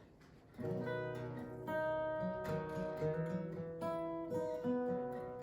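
Solo acoustic guitar playing a song's instrumental intro: chords picked and strummed and left to ring, changing about once a second, starting about half a second in.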